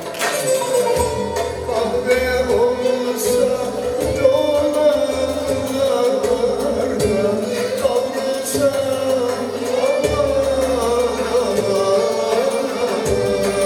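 Turkish folk song (türkü) performed live, with a male lead voice holding long, wavering melody notes over an instrumental ensemble accompaniment.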